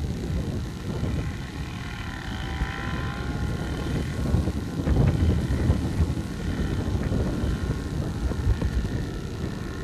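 Harvest machinery engines running in the distance: a steady low rumble with a faint whine, with some wind on the microphone.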